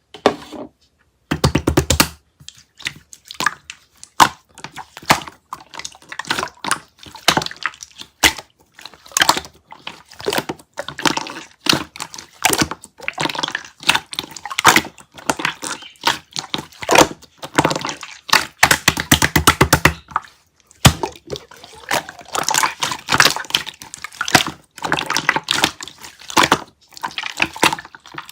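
Clear slime being squished and worked by hand, giving a dense, irregular run of wet clicks, crackles and small air-bubble pops.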